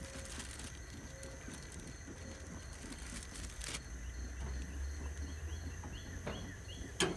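Quiet outdoor ambience. A bird gives a run of about six short rising chirps around the middle, and a plastic bag crinkles sharply once near the middle and again, louder, just before the end.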